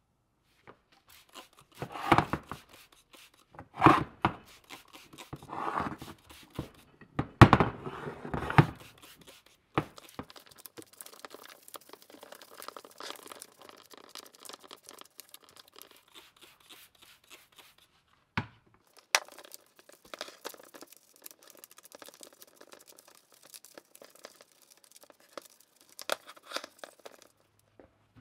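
Greasy cast-iron screw-hoist parts being scrubbed and wiped by hand: several loud, rough scrubbing strokes in the first nine seconds, then softer continuous rubbing, with a single sharp knock about eighteen seconds in.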